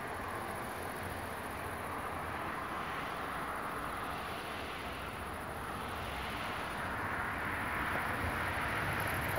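Steady outdoor rushing noise with no distinct events, growing slightly louder near the end.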